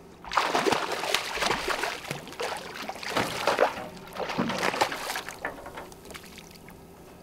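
Hooked coho salmon thrashing and splashing at the water's surface beside the boat as it is gaffed, a run of splashes that starts a moment in and dies down over the last couple of seconds.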